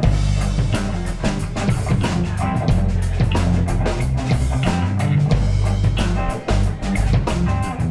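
Live rock band playing an instrumental passage: bass guitar notes, electric guitar and a drum kit. The bass and guitar come in right at the start over the drumbeat.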